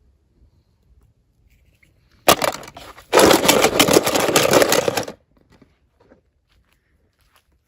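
Packaging being torn open and crinkled: a sudden rip a little over two seconds in, then about two seconds of dense crackling, crinkling noise that stops abruptly.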